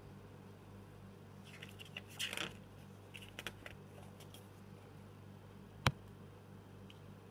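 Glossy paper pages of a CD booklet being turned by hand: a soft rustle about two seconds in, then a few light ticks. A single sharp click near the six-second mark is the loudest sound, over a low steady hum.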